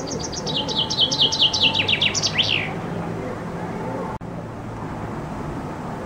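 Common chaffinch singing one song, already under way: a fast run of notes that drops in pitch and speeds up, ending in a short flourish about two and a half seconds in.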